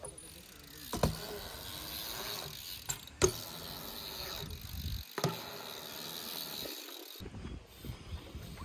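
BMX bikes riding concrete skatepark ramps: tyres rolling on concrete with the rear hubs ticking, and three sharp knocks, about one, three and five seconds in, the middle one the loudest. The sound cuts out briefly twice in the second half.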